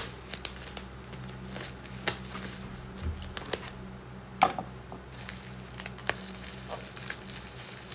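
Plastic wrapping being cut and pulled open by hand, crinkling and tearing in scattered sharp crackles, the loudest about four and a half seconds in.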